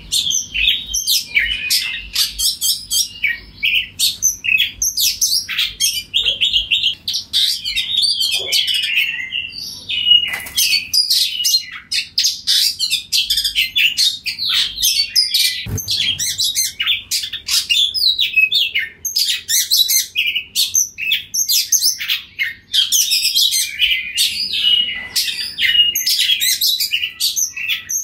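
Oriental magpie-robin singing loudly and without a break: a fast, varied run of high whistled phrases, trills and sharp clicking notes.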